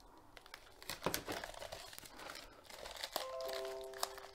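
Plastic poly mailer crinkling, with scattered clicks and crackles as packing tape is pressed down around its shipping label. About three seconds in comes a brief, steady, several-toned whine that lasts about a second.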